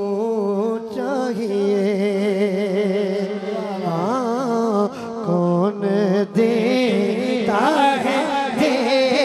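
A male voice singing a long, wavering, ornamented melodic line of a devotional naat, over steady held tones underneath.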